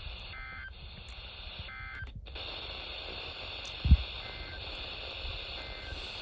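The last two of the three short data bursts of a NOAA Weather Radio SAME end-of-message signal, two warbling tones about a second apart, heard through a weather radio receiver. Steady radio static hiss follows, with a single low thump near the middle.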